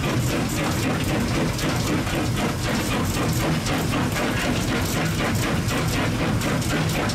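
Steady rattling din of a working steam locomotive's footplate, with a low rumble underneath, as coal is shovelled into the firebox.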